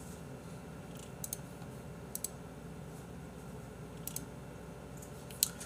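A few sharp computer mouse and keyboard clicks, some in quick pairs, scattered over a steady low room hum, as the chroma key is switched off in the streaming software.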